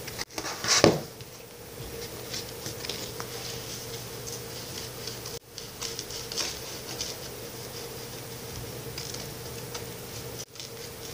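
Pokémon trading cards being handled and sorted by hand: soft, scattered flicking and rustling of card stock, with one louder rustle or bump about a second in. A steady faint hum runs underneath.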